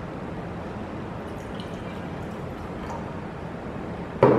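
Tap water pouring from a glass jug into a drinking glass, a steady trickling splash, with a sharp knock near the end.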